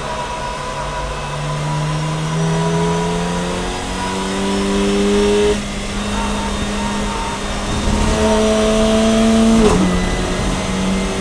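Kronos Fun Cup race car's engine heard from inside the cockpit, accelerating hard in third gear with its pitch climbing steadily, and a brief dip in loudness about halfway through. Near the end an upshift to fourth drops the pitch sharply before it starts climbing again.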